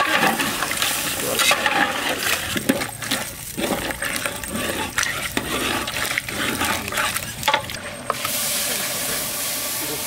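A spatula stirring quail curry in a large metal cooking pot, with irregular clinks and scrapes against the pot. About eight seconds in, this gives way to a steady stream of water poured from a metal jug into a metal pot.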